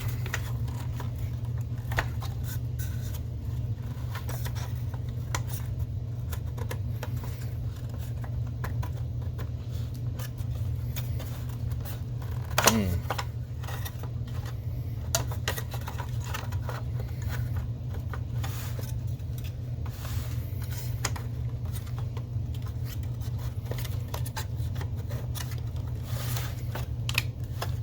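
Small clicks and scrapes of hands working plastic projector parts and a lamp wire back into place, over a steady low hum. One sharper click with a brief squeak comes about halfway through.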